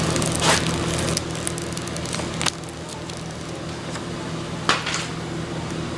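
Paper-and-vinyl crinkling and crackling as a decal's backing is peeled off, mostly in the first two and a half seconds, then a few sharp ticks as the decal is pressed onto the window glass, over a steady low hum.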